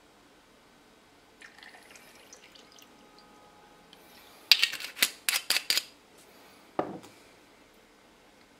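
Barberry tincture poured from a glass bottle into a shot glass: a faint trickle, then a quick run of about six sharp clicks and clinks of glass, and one dull knock as the bottle is set down on the table.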